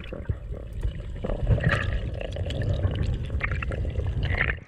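Muffled underwater sound picked up by a camera in its waterproof housing: a steady low rumble of moving water with a few short bubbling gurgles. It cuts off abruptly near the end.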